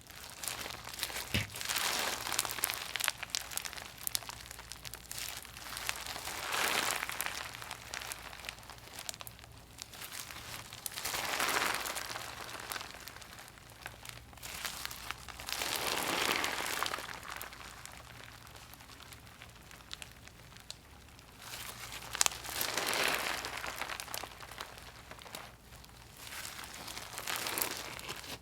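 Gritty, crunchy slime being squeezed and worked by hand, crackling in slow swells every four or five seconds.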